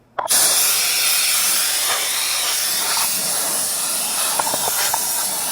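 Compressed air hissing loudly and steadily out of a small air compressor's hose nozzle, starting abruptly just after the start.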